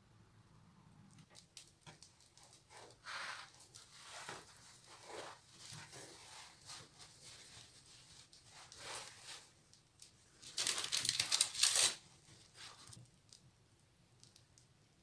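Baking paper and a crisp-crusted baguette rustling and crinkling as they are handled, in short scattered bursts, with one louder crackling stretch of about a second and a half a little past the middle.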